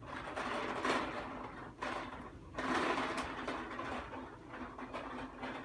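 Child's toy push lawnmower rattling and whirring in uneven spells as it is pushed along.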